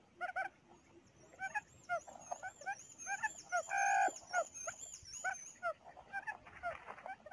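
Quail calls played from a speaker as a trapping lure: a rapid run of short chirping notes, several a second, with one louder, fuller call just before four seconds in.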